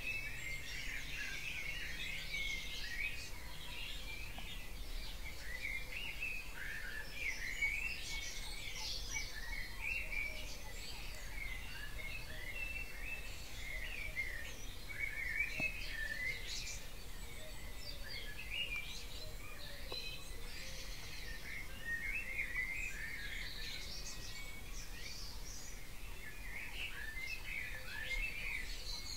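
Dawn chorus: many songbirds singing at once, a dense, unbroken weave of overlapping chirps, trills and whistles, over a faint steady low rumble.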